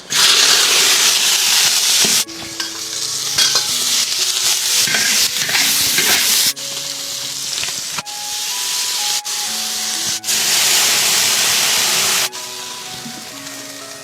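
Food sizzling loudly as it is stir-fried in a hot pan, in several takes that cut off abruptly.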